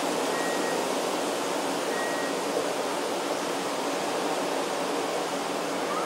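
Forest ambience: a steady, even rushing sound throughout, with a faint, brief high note twice in the first half.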